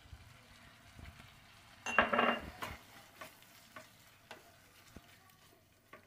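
Spatula stirring and scraping a thick bean paste in a frying pan, with faint sizzling and scattered light taps against the pan; one louder scrape about two seconds in. The paste is being fried down until it dries and releases its oil.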